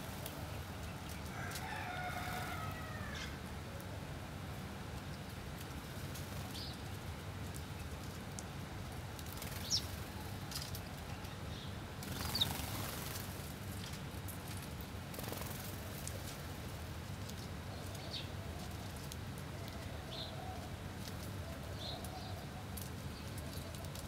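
House sparrows feeding, with a few short high chirps scattered through and a brief flurry of wing flaps near the middle, over steady low background noise. A rooster crows in the background about two seconds in.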